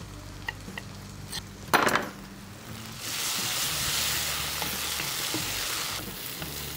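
A few light knife taps on a wooden chopping board and a brief louder sound near two seconds in. From about three seconds in, onions and ginger-garlic paste sizzle in hot oil in a steel kadai while a wooden spatula stirs them, frying down toward brown.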